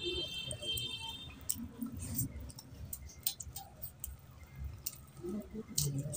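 Wet, sticky sounds of rice being mixed and squeezed with curry by hand on a plate, with chewing and lip smacks picked up close by a clip-on microphone; many short sharp clicks run through it.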